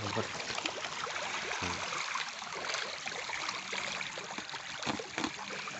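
Steady splashing and trickling water: a crowd of tilapia churning at the surface of a floating fish cage, expecting their feed.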